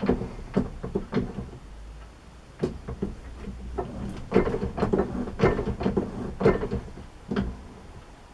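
Metal-lathe broaching strokes: a string of irregular clunks and scrapes, about a dozen with short pauses between groups, as the broaching cutter is worked back and forth through the bore, taking light spring-cut passes with no extra cut added.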